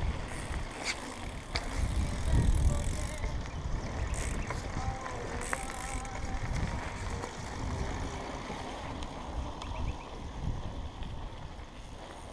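Wind rumbling on an action camera's microphone as a mountain bike rolls along a dirt trail, with a few sharp clicks and rattles from the ride. The noise eases off near the end.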